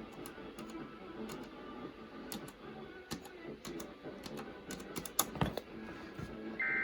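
Irregular clicking of a computer keyboard being typed on. Near the end, the first burst of an Emergency Alert System SAME header starts: a loud, buzzy digital data tone.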